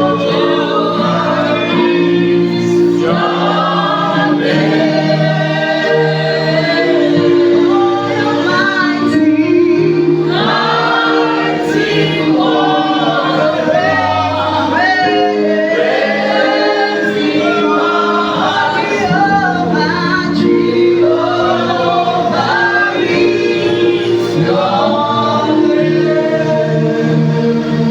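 A praise team singing a gospel worship song together as a group, over steady held accompaniment chords.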